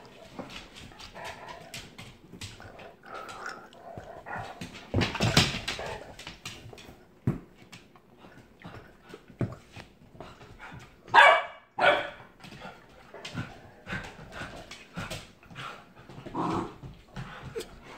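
Dogs at play: two sharp barks about eleven seconds in, among scattered clicks and knocks of claws and a rubber Kong toy on a laminate floor.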